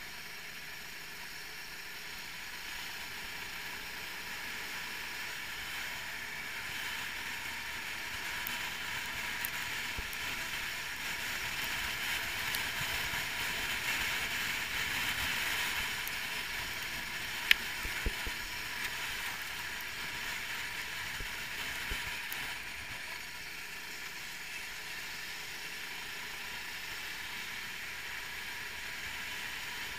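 390cc kart engine running under way, heard from on the kart itself, a steady mechanical drone mixed with rushing noise. It swells to its loudest about halfway through and eases off after, with two sharp knocks in quick succession just past the middle.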